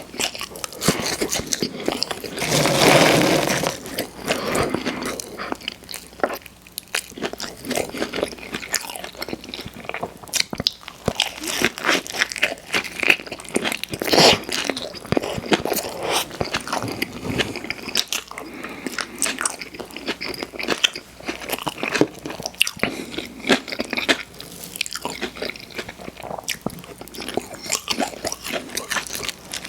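Close-miked eating mouth sounds: biting and chewing fast food, with many wet mouth clicks and short crunches. There is a louder, longer crunch about three seconds in.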